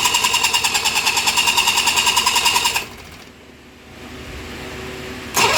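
A 40 hp two-stroke outboard motor cranking on its starter without catching: a loud whirring with fast, even pulses that stops almost three seconds in, then cranking again near the end. It turns over but does not fire, the sign of an engine that won't start.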